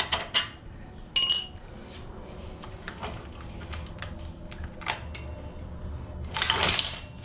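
Metal tools and bike parts clinking and clattering as a minibike's rear axle and wheel are worked loose. There is a ringing metallic clink about a second in, scattered light clicks, and a louder rattling clatter near the end.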